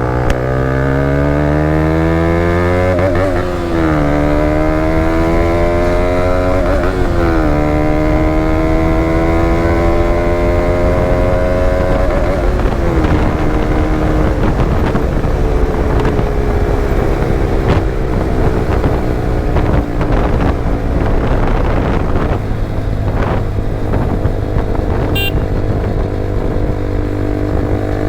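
KTM Duke 200's single-cylinder engine through an Akrapovic exhaust, accelerating hard: the pitch climbs, drops sharply at two upshifts a few seconds apart and climbs again. It then settles into a steady cruise, with the engine note sinking slowly.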